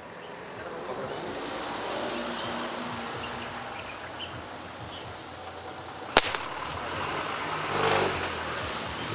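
Tranquilizer dart gun fired once, about six seconds in: a single sharp crack, the loudest sound here, over a low steady engine hum.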